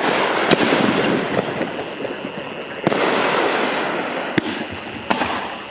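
Aerial firework shells from a rack firing and bursting, each report followed by a fading crackle. Two loud bursts come about half a second and about three seconds in, and smaller pops come near the end.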